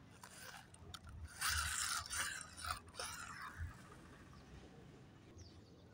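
Plastic toy vehicle with spiked plastic wheels scraping and clicking across a concrete floor, in a few rough bursts from about a second and a half in to about three seconds in.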